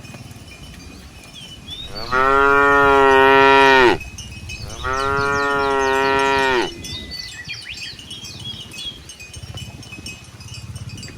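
A cow mooing twice: two long, loud calls of about two seconds each, a short pause between them, the pitch dropping at the end of each call.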